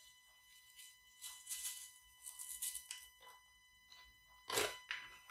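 Faint rustling of a paper sachet as vanilla sugar is shaken into a stainless steel mixing bowl, in several short soft bursts, with one louder rustle about four and a half seconds in.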